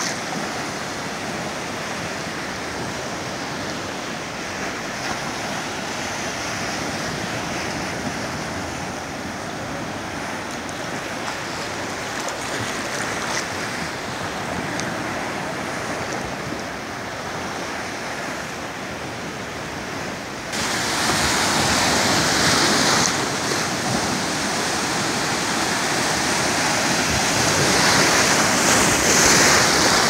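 Ocean surf: a steady wash of small waves and water moving around. About two-thirds of the way in it suddenly grows louder and brighter, with foamy breaking surf washing in close by.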